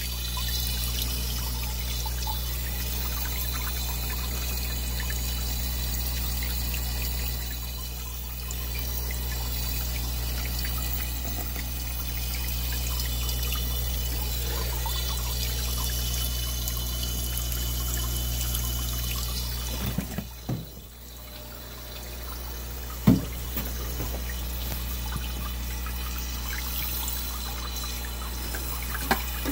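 Water pouring and trickling into a live-bait minnow tank, with the aerated water bubbling and a steady low hum underneath. A brief dip about two-thirds of the way in, then a single knock.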